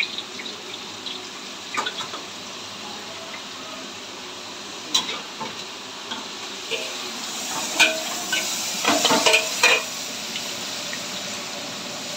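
Stir-fry sizzling in a pan with a steady frying hiss, broken by sharp clicks and knocks of a utensil against the pan, loudest in a quick cluster about eight to ten seconds in.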